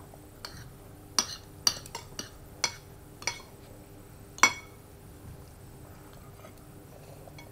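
Tableware clinking: a quick string of about eight sharp clinks over about three seconds, the last one the loudest.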